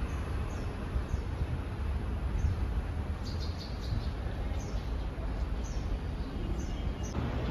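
A bird chirping: short high chirps about once a second, with a quicker cluster of chirps about three seconds in, over a steady low outdoor rumble.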